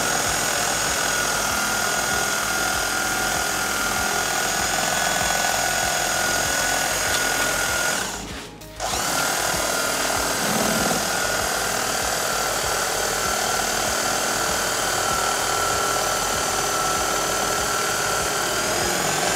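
Electric bread knife running steadily with a high whine as its blades saw through seat foam; it cuts out for under a second near the middle, then starts again.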